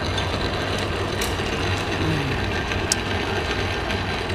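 A belt-driven Canedy-Otto drill press running with a steady electric-motor hum and a belt-and-pulley whir, with a faint click about three seconds in.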